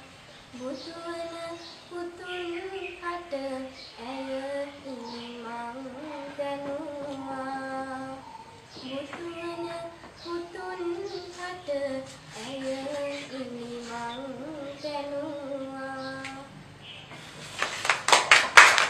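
A schoolgirl singing solo and unaccompanied, holding long notes in short phrases. About a second and a half before the end the singing stops and loud clapping starts.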